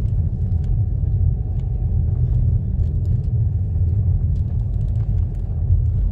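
A car driving at a steady pace: continuous low rumble of engine and tyre noise, with a few faint ticks.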